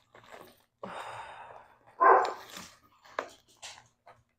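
A dog barking, one loud bark about two seconds in, over the crinkling and scraping of a thin plastic nursery pot being worked out of a ceramic pot, with a few light knocks near the end.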